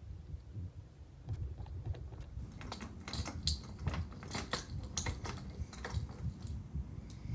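A quick run of light clicks and taps, densest through the middle, over low handling bumps and rumble.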